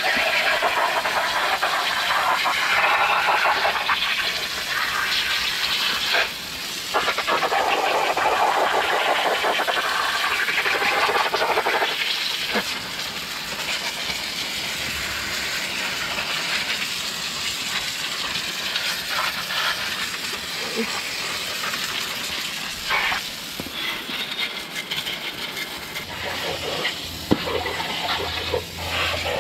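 Garden hose with a pistol-grip spray nozzle jetting water onto muddy horse tack and a wet concrete floor: a steady hissing spray. It breaks off briefly about six seconds in and runs softer after about twelve seconds.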